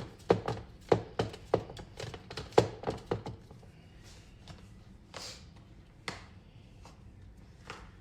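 A rapid run of sharp knocks, about three a second, for the first three seconds, then only a few scattered knocks.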